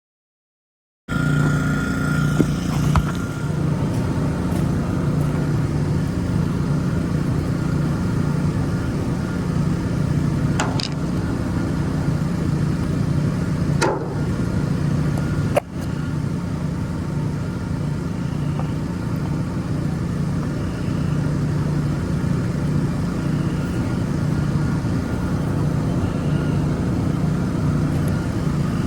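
Gas pressure washer engine running steadily, starting abruptly about a second in, with a few brief clicks along the way.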